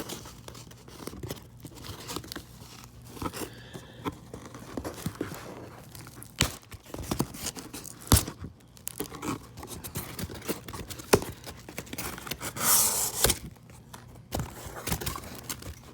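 A shipping box being opened by hand: tape tearing and cardboard and packing material rustling and crinkling, with scattered sharp clicks and scrapes and a louder stretch of tearing about three seconds before the end.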